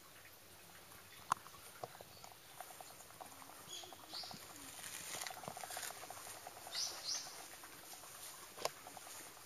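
Faint outdoor ambience with several short, high bird chirps and a few sharp clicks.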